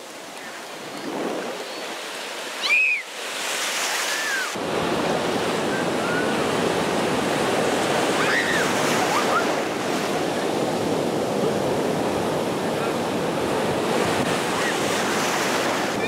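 Ocean surf breaking and rushing through the shallows, a steady dense wash of water, with wind on the microphone. About three seconds in a child gives a short high-pitched squeal, the loudest moment, and a few brief faint children's cries sound over the surf later.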